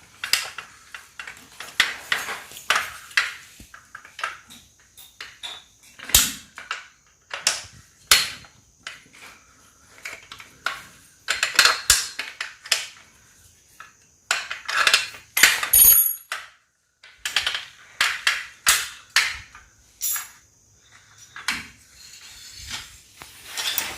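Irregular metallic clanks, knocks and rattles from handling the metal washing-machine trolley stand.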